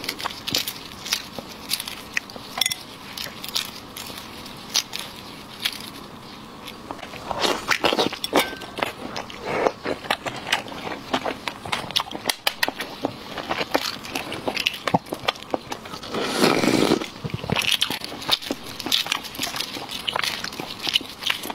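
Close-miked eating sounds: eggshell of five-spice marinated fertilized eggs (活珠子) crackling as gloved fingers crack and peel it, mixed with wet chewing and mouth smacks. Two longer, noisier stretches come about seven and sixteen seconds in.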